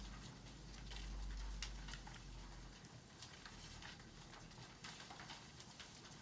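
Paper rustling as handout pages are turned over, in many short scattered crackles and clicks. A low hum underneath stops about three seconds in.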